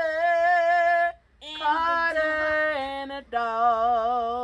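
A single unaccompanied voice singing long, drawn-out notes with wide vibrato. The pitch steps down over three or four notes, with a short breath about a second in.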